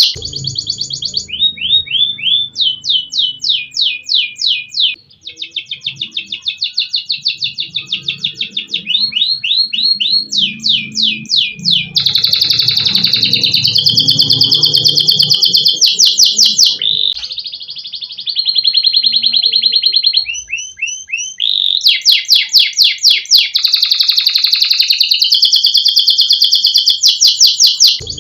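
Domestic canary singing nonstop: a continuous chain of rapid trills, each phrase a fast run of repeated notes, switching to a new trill every second or two. A faint low rumble sits underneath.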